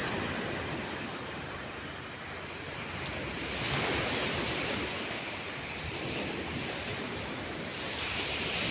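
Sea surf washing onto the shore: a steady rush of breaking waves that swells about three and a half seconds in and again near the end.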